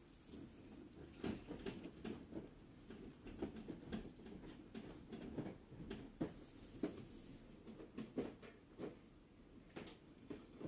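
Irregular soft taps and rubbing of a hand holding the filming phone and tapping a tablet's touchscreen, several dull knocks a second.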